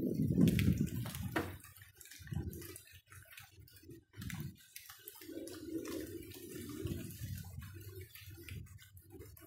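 Rain dripping and splashing: irregular drops ticking and splattering on wet surfaces, with a heavier spell of splashing in the first second or so and again around six seconds in.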